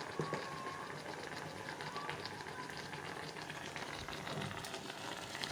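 Pot of tomato puree cooking on the heat, bubbling and sizzling with a steady crackle of small pops.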